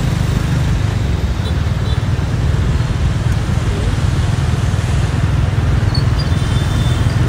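Dense street traffic of motorbikes and cars: a steady low rumble of engines and tyres.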